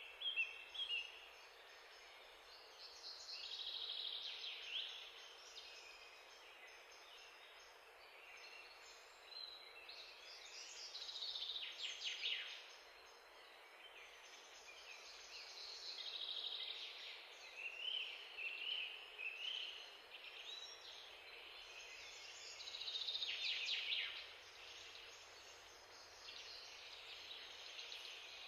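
Faint birdsong: phrases of high chirps and trills a few seconds long, coming again and again.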